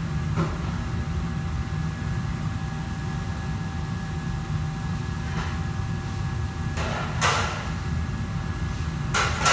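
Commercial kitchen room noise: a steady low rumble with a faint steady whine, broken by a few brief knocks and clatters, the loudest about seven seconds in and again just before the end.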